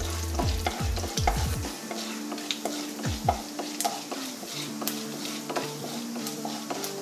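Mustard seeds and urad dal frying in hot oil in a wok, stirred with a wooden spatula: a steady sizzle with many scattered pops and crackles from the mustard seeds spluttering.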